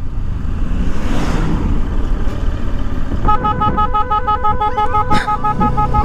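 A bus horn fitted to a motorcycle sounds about three seconds in: a two-note blare chopped into quick, even pulses that keep going. Under it the motorcycle's engine runs, with wind noise.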